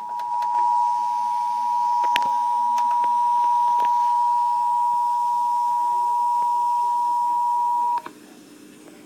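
Emergency Alert System attention tone heard over AM/FM radio: one steady tone, with a few crackles of static across it, that cuts off abruptly about eight seconds in. It announces that a severe thunderstorm warning message follows. After it only a faint hum remains.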